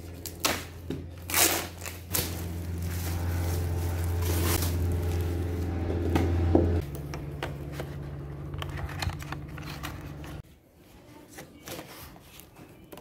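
Plastic wrapping crinkling and tearing as it is pulled off a stretched art canvas, with scraping and handling knocks, over a steady low hum that drops out about ten seconds in.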